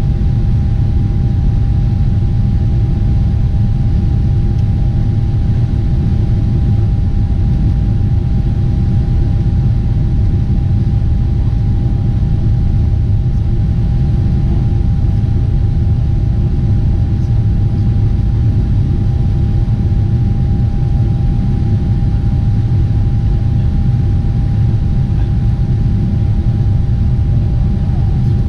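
Steady low rumble of a Boeing 747-8 in flight, engine and airflow noise as heard in the cabin, with a constant thin whine held above it.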